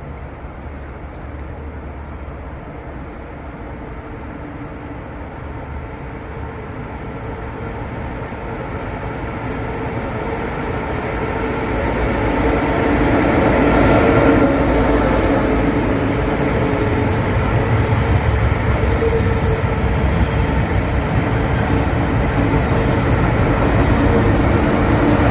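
Train running on the rails, growing louder over about the first half, then staying loud and steady.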